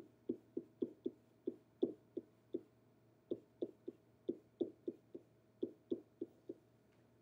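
Pen tapping and stroking on an interactive whiteboard as chemical structures are drawn. It is a string of short, dull taps, about three a second, unevenly spaced with a brief pause near the middle.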